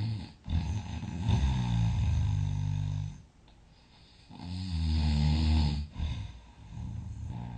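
A person snoring heavily in sleep: one long snore of about two and a half seconds, a pause, a second snore of about a second and a half, then shorter, softer snores near the end.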